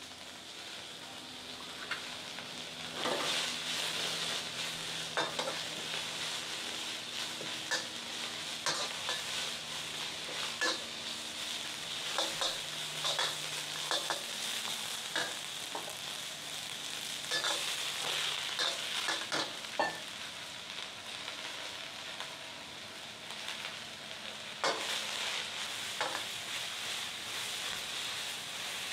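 Food sizzling in a wok over a high-heat propane burner, with a metal wok spatula scraping and clacking against the wok in irregular strokes as the food is stir-fried.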